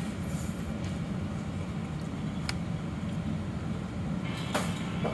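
Steady low hum of restaurant room noise, with a sharp click about two and a half seconds in and another near the end.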